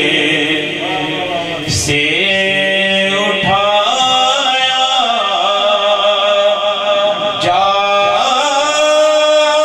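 Male voice singing an Urdu naat a cappella, in long held melodic lines over layered background vocal harmonies.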